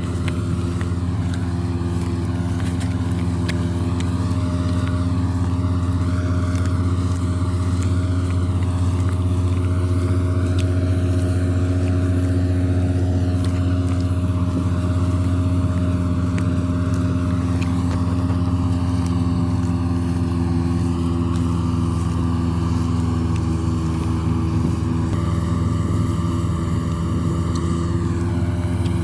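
Diesel engine of a combine harvester running steadily at working speed, with a heavy, even low hum and a dense haze of machine noise above it.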